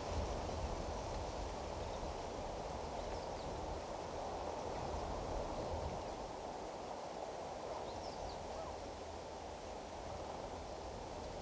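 Steady outdoor bush background noise with a low rumble underneath, and a few faint, high bird chirps now and then.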